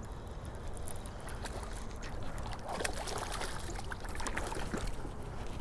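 Baitcasting reel being cranked, with fine rapid clicking, as a small bass is reeled in and splashes at the water's surface beside the boat, over a steady low rumble.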